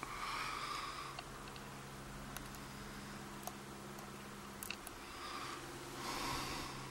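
Two breaths out through the nose, one at the start and one near the end, with a few small sharp clicks between them from the lock's pins and parts being handled.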